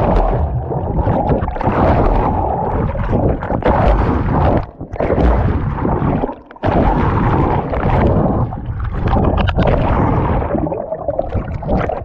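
Loud, muffled rush and churn of water around a hand-held GoPro dipped at the surface of a waterfall stream, with knocks from hands on the camera. It drops out briefly twice, about halfway through.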